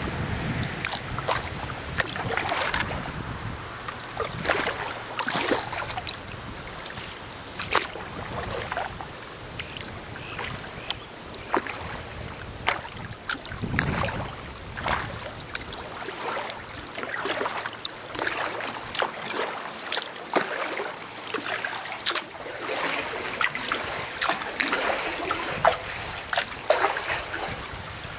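Flowing river water splashing and gurgling irregularly.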